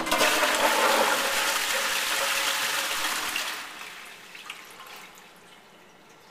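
Tankless commercial toilet flushing: a loud rush of water that starts suddenly, holds for about three and a half seconds, then dies away to a faint trickle as the bowl settles.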